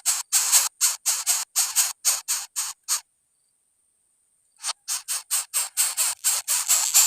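Coucal nestling giving rasping, hissy begging calls in quick repeated bursts, about three to four a second, breaking off for about a second and a half in the middle.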